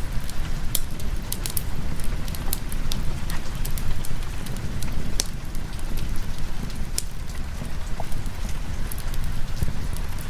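Steady rain with a deep low rumble, mixed with a fireplace crackling in scattered sharp pops.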